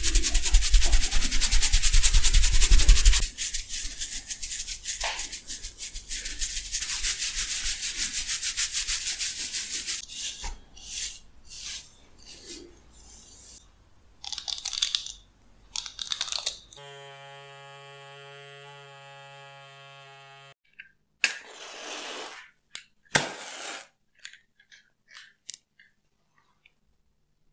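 Close-miked montage of hand sounds: fingers rubbing and scratching through oiled hair, fast and loud for the first few seconds, then softer. From about ten seconds in, fingers pluck and scrape the plastic bristles of a hairbrush in short irregular bursts. After a few seconds of a steady pitched hum, two matches are struck with sharp flaring hisses about two seconds apart.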